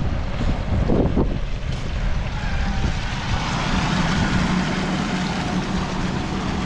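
Water rushing steadily out of an opened fire hydrant as it is flushed after a stem replacement, clearing dirt from the line, with a steady low hum underneath.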